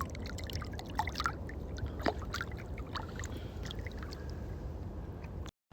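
Freshly caught fish flopping and splashing in water: a run of scattered small splashes and knocks over a steady low hum.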